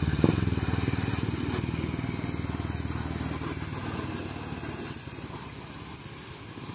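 A motor vehicle's engine running with a rapid low pulsing, fading steadily as it moves away.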